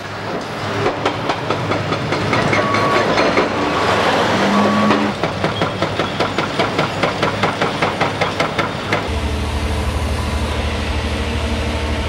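Heavy demolition machinery at work. A mounting grinding din with a few short high beeps gives way to a rapid clatter of about five knocks a second. At about nine seconds it changes abruptly to a steady low diesel engine drone.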